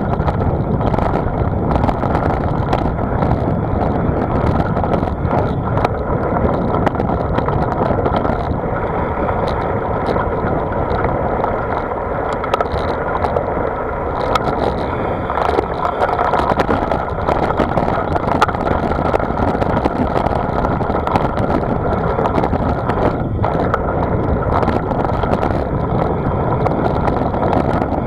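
Steady rush of wind and road noise from a moving ride, heard from the on-board camera, with frequent small clicks and rattles and a faint hum.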